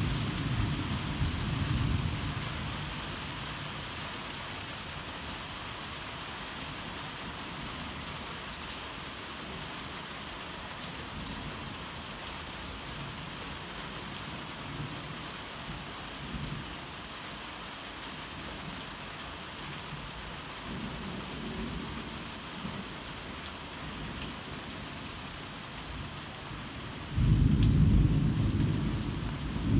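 Heavy rain falling steadily, with thunder: a rumble fading out in the first few seconds, a faint rumble about two-thirds of the way through, and a loud rumble breaking in suddenly near the end.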